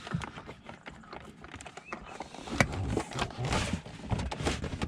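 Irregular knocks and clicks, the loudest about two and a half seconds in.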